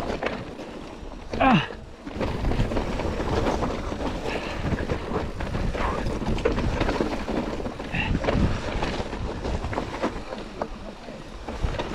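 Wind buffeting the microphone over the rumble and rattle of a mountain bike rolling over rough, rocky trail. A short vocal exclamation with falling pitch comes about a second and a half in.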